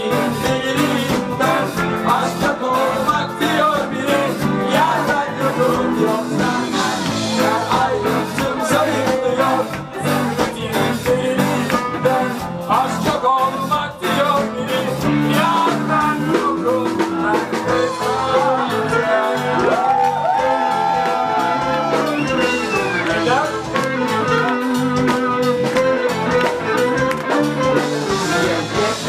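Pop song played by a band, with a steady beat and guitar and a voice singing in places, in a stretch without lyrics.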